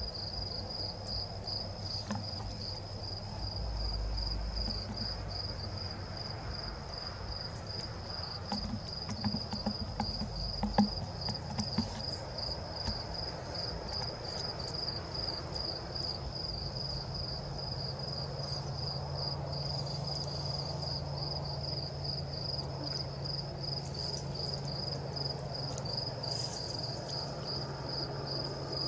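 A cricket chirps in a steady, even, high-pitched pulsing run of several chirps a second, with a few sharp knocks around the middle.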